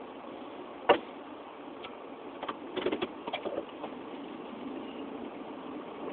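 Steady engine hum, broken by one sharp knock about a second in and a quick cluster of clattering knocks near the middle.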